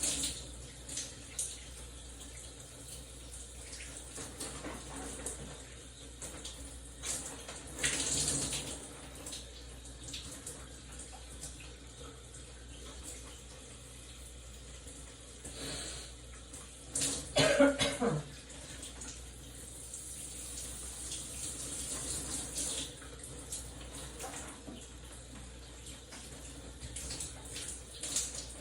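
Shower water running steadily, with a few brief sounds from the person under it. The loudest, about 17 seconds in, is a short vocal burst that falls in pitch.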